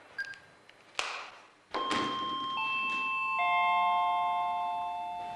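A short electronic beep and a click as a mobile phone is switched off, then a doorbell chime plays three descending notes less than a second apart, each ringing on and overlapping the next.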